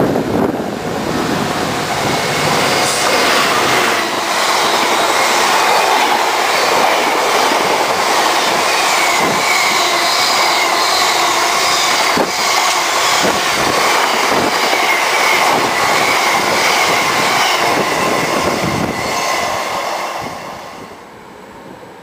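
Freightliner Class 66 diesel locomotive passing at speed with a long train of coal hopper wagons: a loud steady rush of wheels on rail, with occasional knocks over rail joints and a thin wheel squeal. The noise drops away about twenty seconds in as the end of the train goes by.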